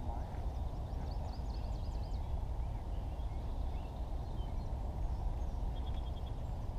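Wind rumbling steadily on the microphone, with faint small-bird chirps in the background and a quick run of high pips near the end.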